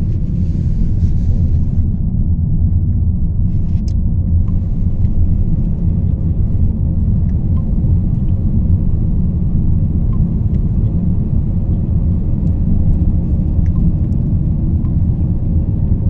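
Steady low rumble of a moving car heard from inside the cabin: engine and tyre noise on the road, with a few faint clicks.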